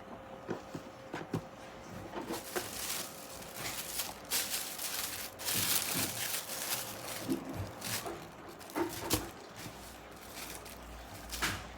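Packaging being handled and opened: irregular paper and wrapping rustling and crinkling, with light taps and clicks, busiest a few seconds in.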